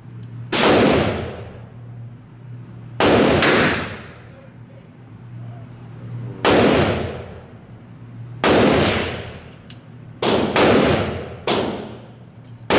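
Gunshots echoing inside an indoor shooting range: about eight sharp cracks at irregular intervals, some in quick pairs, each with a ringing tail. A steady low hum runs underneath.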